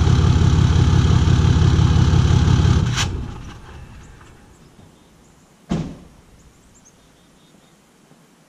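Ram 2500's 6.7-litre Cummins inline-six diesel running loud and steady with its exhaust apparently fallen off, then shut off about three seconds in and dying away. A single thump about two and a half seconds later, a door closing.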